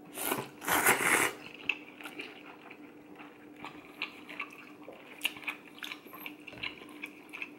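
Rice noodles slurped from a soup bowl, loud noisy sucking in the first second or so. Then quieter scattered clicks as chopsticks and a ceramic soup spoon work in the bowl, over a faint steady hum.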